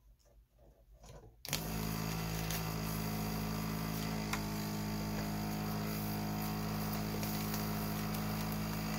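Electric desoldering tool's vacuum pump switching on about a second and a half in and running steadily with a hum, sucking leftover solder off the circuit-board pads.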